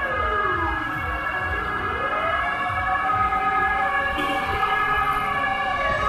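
Fire truck siren wailing: the pitch falls, climbs back up over a couple of seconds, holds high, and starts falling again near the end. A low rumble of traffic runs underneath.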